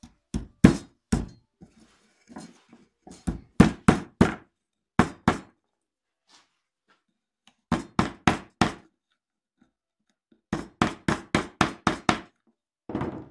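Small hammer tapping a thin tin-can steel strip against a wooden block to fold it in half: sharp knocks in several quick runs of two to seven taps, with short pauses between.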